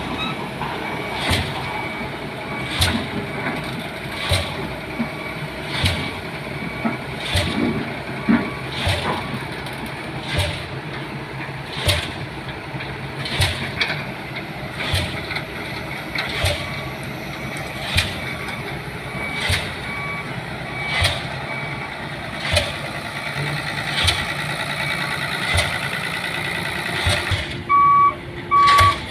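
DD 55 diesel pile hammer striking a pile, about one blow every second and a half, over the steady running of the crane. A faint high beeping runs through it, and a loud electronic beeping starts near the end.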